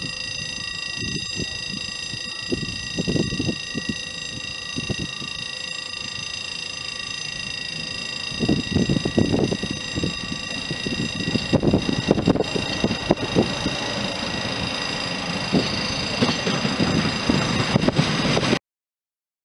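Steam locomotive 140 C 314, a 2-8-0, approaching, its exhaust beats growing louder from about eight seconds in. The sound cuts off suddenly near the end.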